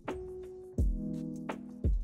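Background music with a slow beat: deep kick-drum thumps about a second apart and a sharper snare-like hit between them, under sustained chords.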